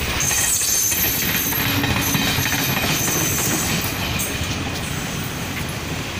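Passenger train passing close by: a steady rumble of carriages running on the track, with a thin high squeal from the wheels in the first second or so.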